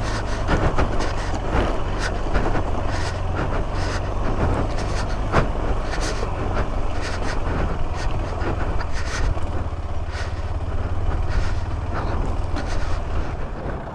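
A vehicle engine running steadily under load over rough, rocky ground, with frequent knocks and rattles from the body and suspension.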